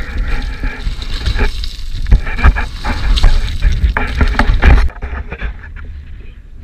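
Hiking boots crunching and skidding down loose rock scree in quick, uneven steps, with wind buffeting the microphone. About five seconds in the sound cuts off abruptly to a quieter stretch.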